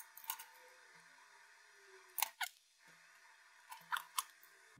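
A few faint, sharp clicks and light knocks from a small amplifier circuit board and its test leads being handled and set down on a cutting mat, in three small clusters.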